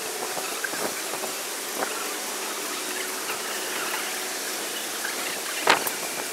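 Steady rushing outdoor noise from a high open viewpoint, with a few faint clicks and one sharper knock about five and a half seconds in.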